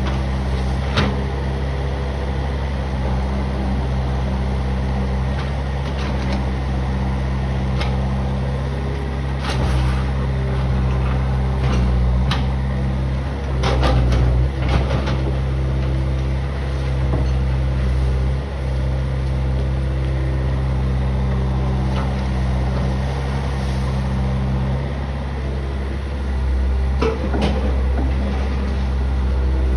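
Backhoe's engine running steadily under work, with scattered knocks and scrapes as the bucket rakes up crushed stone, busiest a little before the middle and again near the end.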